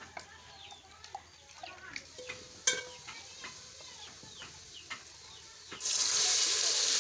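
Wet ground paste poured from a wooden mortar into hot oil and fried onions in an aluminium pot, sizzling loudly from about six seconds in. Before it, chickens peep and cluck, with small knocks and one sharp knock about two and a half seconds in.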